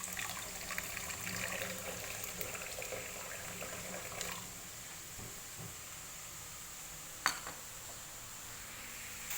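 Water pouring into thick coconut milk in a container for about four seconds, then a single sharp click a little past seven seconds in.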